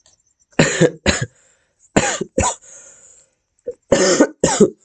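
A man coughing hard several times, in three pairs of coughs about a second and a half apart.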